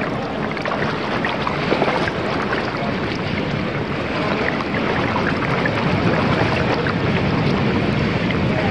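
Pool water sloshing and splashing close to a microphone held at the surface as a swimmer moves through it: a steady rush with scattered small splashes and some wind-like buffeting.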